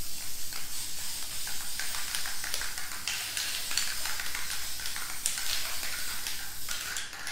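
Dupli-Color aerosol spray paint can spraying in one continuous hissing pass, flickering slightly as it sweeps, and stopping near the end.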